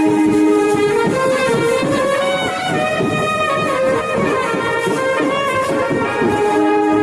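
Brass band music: horns playing a melody of held notes over a busy drum beat.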